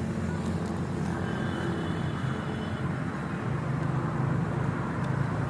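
A steady low rumble of vehicle traffic or a running engine, with a faint high tone for a second or two near the middle.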